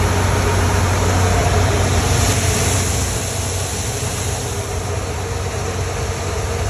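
Grain-handling machinery running steadily as corn is dumped into a pit and carried up by a transport auger into a wet bin: a constant low engine hum under a rushing noise, easing slightly about three seconds in.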